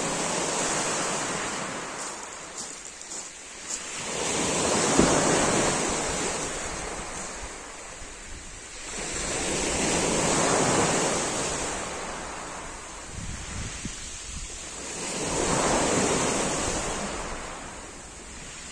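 Small waves breaking on a pebble beach, each surge swelling and fading, about every five to six seconds.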